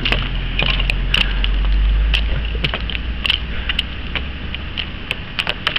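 Irregular sharp clicks and cracks of ice in freezing rain, over a steady low rumble that fades near the end.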